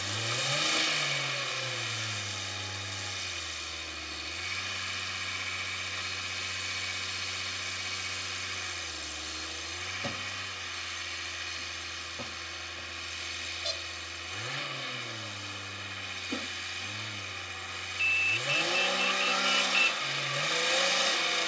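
Komatsu WA350 wheel loader's diesel engine revving up and down several times as it drives and raises its loaded bucket. Near the end a reverse alarm beeps rapidly over the engine.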